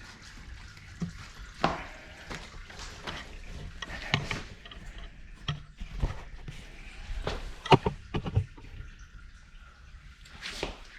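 Irregular clicks, taps and short rustles of the oil filter and its housing parts being handled, with two sharper knocks about eight seconds in.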